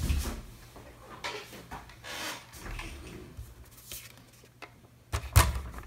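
Sheet of card stock being picked up and slid across a craft mat, with soft rustles and light knocks. One sharp knock about five seconds in is the loudest sound.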